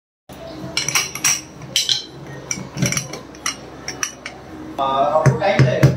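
Irregular metal clinks and knocks of a pressure cooker's lid and handle being worked open on a gas stove.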